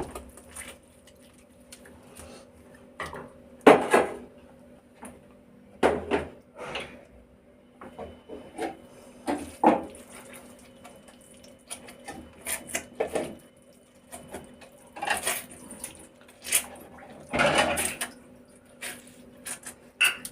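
Kitchenware being handled: scattered clinks and knocks of dishes and utensils, with a few short scraping stretches, over a faint steady hum.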